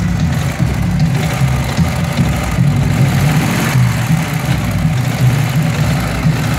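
Flat-twin boxer engine of a Soviet-style military sidecar motorcycle running steadily at low revs with a low, pulsing chug as the bike creeps forward.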